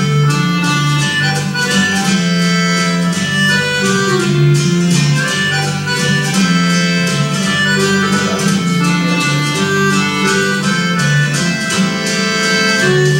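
Instrumental music: held chords and a sustained bass line under a quick, rhythmic pattern of short notes.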